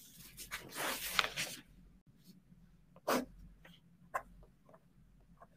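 Faint handling noises of a book and pen being marked: a rustle of paper from about half a second in, a soft knock just after three seconds, then a few light clicks.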